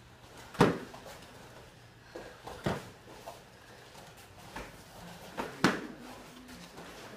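Blows landing in full-contact karate sparring: a few sharp smacks of kicks and punches striking bodies and gi, the loudest about half a second in and again about five and a half seconds in, with lighter hits between.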